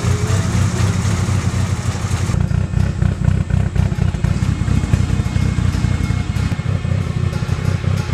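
Mitsubishi Lancer Evolution's 4G63T turbocharged four-cylinder idling through an aftermarket exhaust, a steady deep exhaust note.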